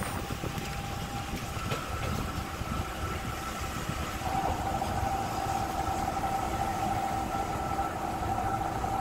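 Diesel railcar under way, heard from inside the passenger cabin: a steady low engine drone and running noise. A steady whine sounds over it, growing stronger about four seconds in.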